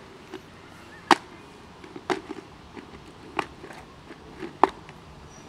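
Four sharp plastic clicks about a second apart, the snap-lock latches of a plastic food container being worked by hand, with light rustling between them.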